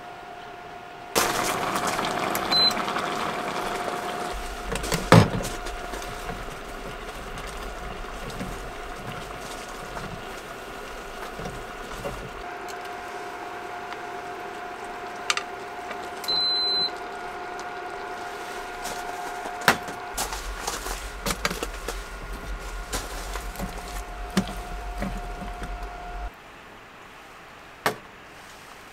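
Stew bubbling in a square electric hot pot, with a steady whine underneath. A few sharp clinks of a metal ladle and spoon against a small metal cup come through. The bubbling and whine stop suddenly near the end.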